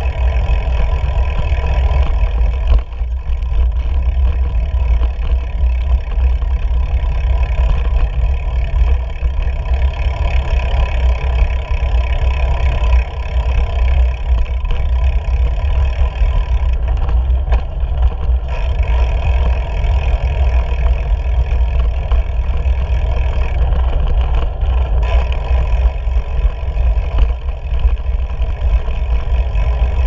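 Wind buffeting and tyre rumble picked up by a camera mounted low on a moving bicycle: a steady, loud, low rumble with a hiss over it.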